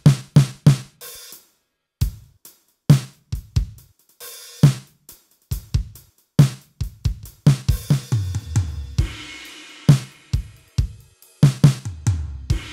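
Drum and cymbal samples triggered on a Roland SPD-SX sampling pad: separate sharp hits with short silences between them, a cymbal wash ringing from about nine seconds in, and a last hit left to ring out near the end.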